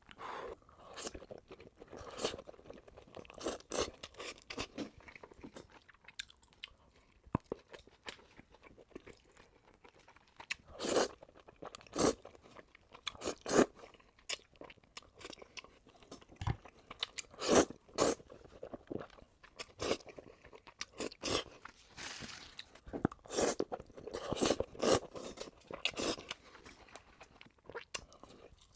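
Close-miked crunchy eating: bites and chewing of crisp food, a long run of sharp, irregular crunches with louder clusters partway through and toward the end.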